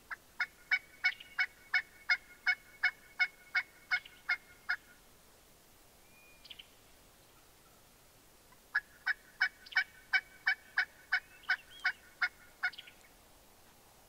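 Two long runs of turkey yelps, about three notes a second. The first starts right away and lasts nearly five seconds; the second starts about nine seconds in and lasts about four.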